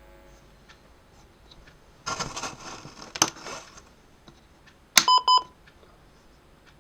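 Handling noise, a rustle with a sharp click, then about three seconds later a click and three quick electronic beeps from the sound unit built into a Bandai Millennium Falcon model as its switch is pressed to start the sound effects.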